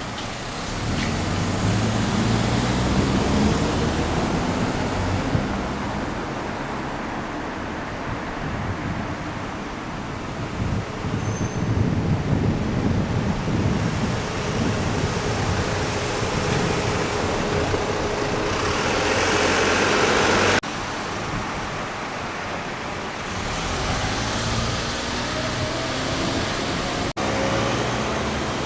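Road traffic: motor vehicle engines running and passing, with a steady low hum. A louder, hissier stretch ends abruptly about twenty seconds in.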